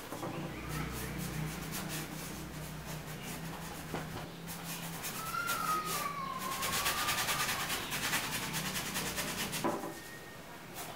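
A big paintbrush scrubbing paint onto a stretched canvas in quick repeated strokes, loudest in the middle, over a steady low hum. A short wavering whistle-like tone comes partway through.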